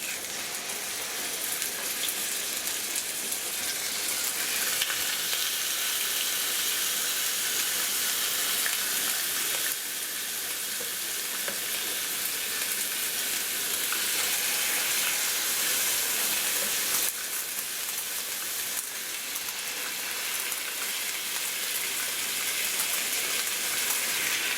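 Rabbit meat searing in a frying pan over high heat, a steady, dense sizzle of hot fat.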